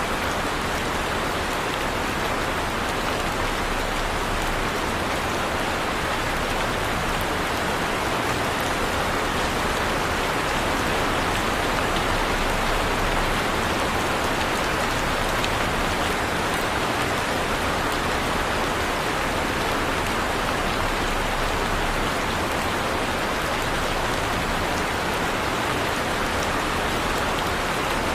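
Heavy rain falling steadily, an even dense hiss of drops on surfaces with no thunder and no change in strength.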